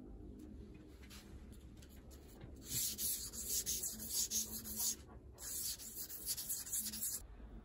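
Aluminium dog tag being sanded by hand on wet sandpaper: a scratchy rasp of metal rubbed back and forth, in two stretches with a brief break at about five seconds. A few faint ticks come before the sanding starts.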